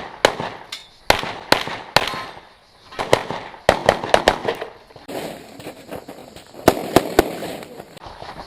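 Handgun shots fired by a competitor on an IPSC stage: a dozen or more sharp reports in quick pairs and strings, with short pauses of about a second between groups.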